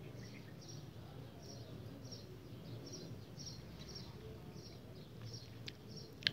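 Faint bird chirping in the background, short high chirps repeating about twice a second over a low hum. A sharp click near the end.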